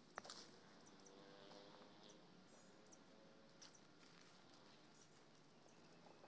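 Near silence: faint outdoor background hiss, with one short click just after the start and a few faint high chirps around the middle.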